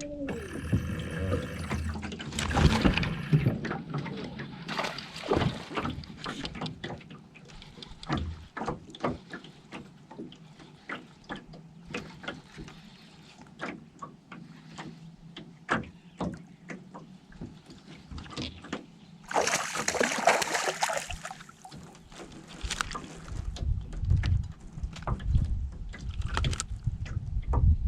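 Scattered knocks and clunks of gear in a small fishing boat, with water sloshing against the hull and a brief burst of splashing hiss about twenty seconds in.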